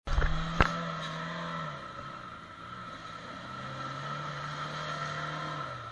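Jeep Cherokee XJ's engine held at steady high revs as it pushes through deep mud, easing off about two seconds in, then climbing and holding again before dropping near the end. A sharp knock sounds about half a second in.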